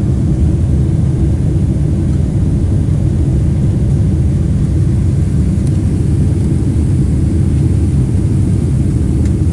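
Steady low rumble of a jet airliner's cabin in flight, the engines and airflow heard from inside the passenger cabin.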